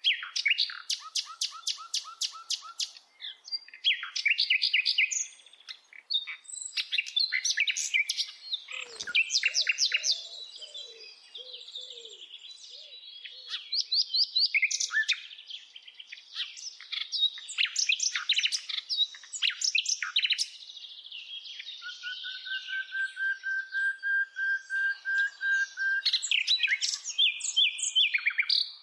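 Several birds chirping and trilling, with fast runs of short notes overlapping throughout. In the second half, one steady whistled note is held for about four seconds.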